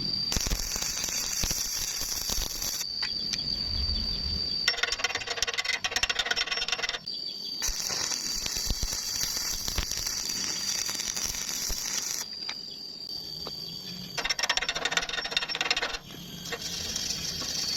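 Electric arc welding crackling and sizzling in several runs of a few seconds each that start and stop abruptly, over a steady high whine.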